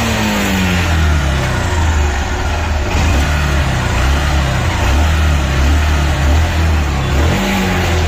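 Bajaj CT motorcycle's single-cylinder four-stroke engine running and being revved, its pitch rising and falling, freshly rebuilt with a new piston and rings after a rebore.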